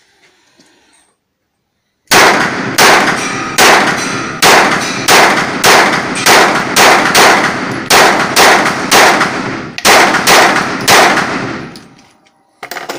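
9 mm semi-automatic pistol firing about fifteen shots at a steady pace, roughly one every two-thirds of a second, starting about two seconds in. Each shot rings with the echo of an indoor shooting range.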